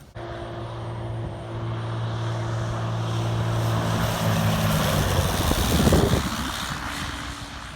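Propeller airplane engine passing close by. The drone starts suddenly, grows louder to a peak about six seconds in, then drops in pitch and fades as the plane goes past.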